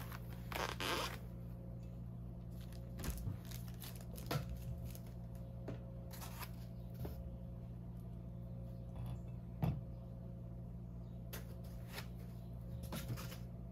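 Handling noise of a diecast model airliner being worked out of a foam packing insert: scattered light rustles, squeaks and clicks over a steady low hum, with one short knock about ten seconds in.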